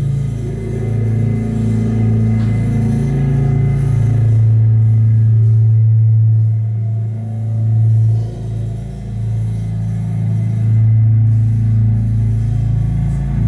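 Live chamber-ensemble music: slow, sustained low droning tones that swell and sag, with a brief dip about eight seconds in.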